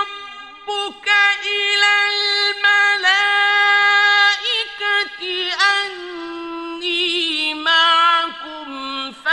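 A male reciter chanting the Quran in melodic tajweed: long held notes with ornamented turns in pitch, in phrases broken by short pauses for breath.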